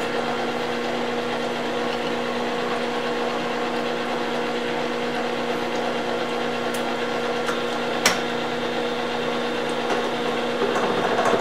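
Milling machine running steadily with a hum, its disc gear cutter taking a light finishing cut through the teeth of a spur gear repaired with silicon-bronze weld. A single sharp click comes about eight seconds in, and the cut grows a little louder near the end.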